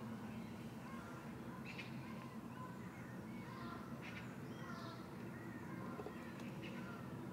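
Birds chirping and calling in short, scattered phrases over a steady low hum.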